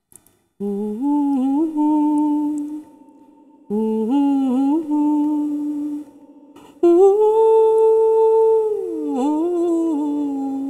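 A woman humming a song melody unaccompanied, in three phrases with ornamented turns and long held notes. The third phrase starts higher and sinks back down near the end.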